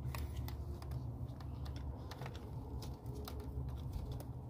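Light, irregular clicks and taps of hand tools and small engine parts being handled while spark plugs are worked on, over a steady low hum.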